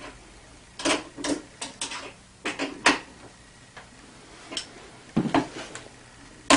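Metal wrench clicking and clinking on a scooter mirror's mounting bolt as the mirror is tightened onto the handlebar: a string of short, irregular clicks, bunched in the first three seconds and again later after a pause.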